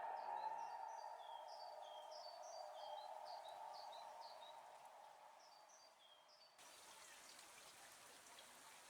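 The last of a Kockum Sonics Delta-8 AT civil-defence siren's tone dying away as a faint steady note after its general-alarm wail, with a small bird chirping in short falling notes. About two-thirds of the way through, a soft even hiss of light rain sets in.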